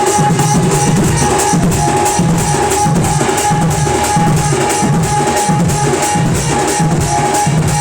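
Sambalpuri band party playing an instrumental tune: fast, dense drumming over a pulsing bass line, with a long held melody note on top.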